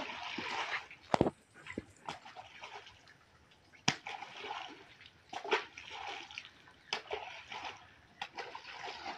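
Live fish thrown one after another from a plastic crate into a pond, splashing as they land, with a few sharp knocks, the loudest about a second in. The fish are being stocked into the pond.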